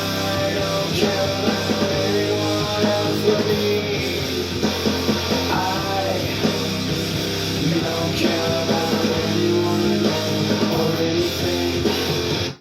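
Background rock music with guitar and singing, which cuts off suddenly at the end.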